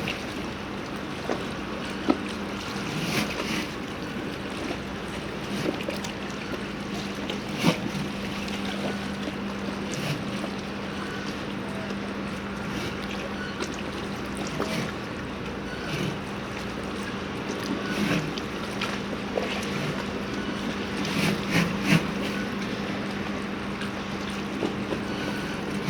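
Harbour ambience: a steady low mechanical hum, like a moored boat's engine or generator running, under a wash of water and wind noise, with irregular knocks and clanks every second or two.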